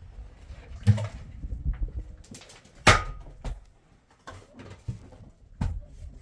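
A series of irregular knocks and clatters of objects being handled. The loudest comes about three seconds in, with a brief ring after it.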